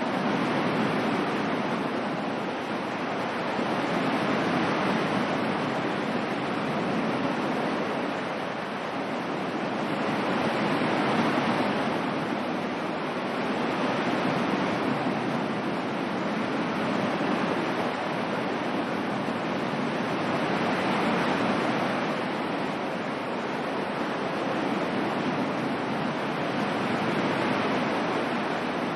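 Ocean waves washing on a shore, a steady rush of surf that swells and eases every several seconds.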